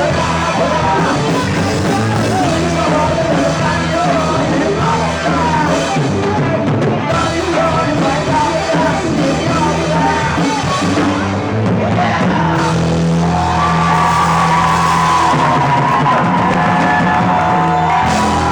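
Rock band playing live with singing. About two-thirds of the way through, a long note is held over the band.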